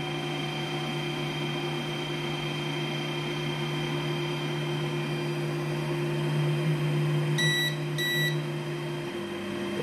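Peopoly Phenom LCD resin printer's Z-axis motor running steadily as it lowers the build plate during homing, a steady hum. Two short electronic beeps about half a second apart come a little over seven seconds in, and about nine seconds in the hum shifts to a different pitch.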